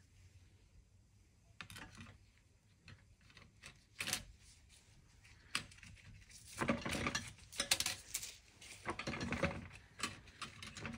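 Steel and friction clutch plates of a ZF 8HP55 automatic transmission clicking and clattering against each other as they are handled and fitted into the clutch pack. A few separate clicks come first, then denser rattling from about six seconds in.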